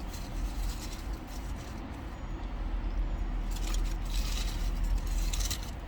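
Steady low rumble of a car cabin, with brief rustling about two seconds in and again near the end.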